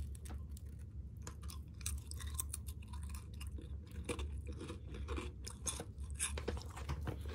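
A person biting and chewing a dry wholemeal cracker biscuit, a run of irregular crunches and crackles close to the microphone, over a steady low hum.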